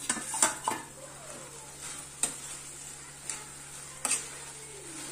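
Diced potatoes and onions sizzling as they fry in a kadai, while a steel slotted spoon stirs them. The spoon scrapes and knocks against the pan several times, a quick cluster near the start and then single strokes about once a second.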